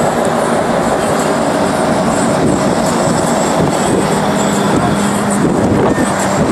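Steady, loud street traffic: cars and trucks driving past close by, their engines and tyres running together.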